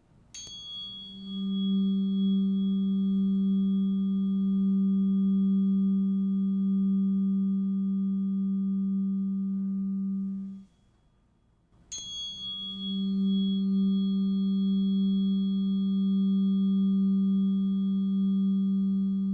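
Earth tuning fork struck twice, each strike a short high ping followed by a steady low hum held for about ten seconds. The first hum is cut off suddenly, then the fork is struck again about a second later and rings on.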